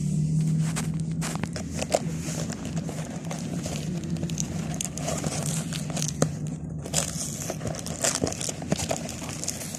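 Plastic mailer packaging and a cardboard product box being handled and opened: crinkling and rustling with many small irregular crackles and clicks. A steady low hum runs beneath it and eases about seven seconds in.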